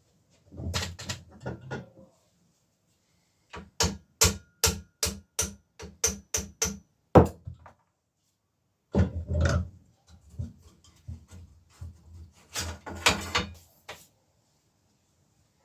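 A bicycle headset being worked on: a run of about ten sharp metal taps, roughly three a second and ringing slightly, between bursts of scraping and rattling of metal parts.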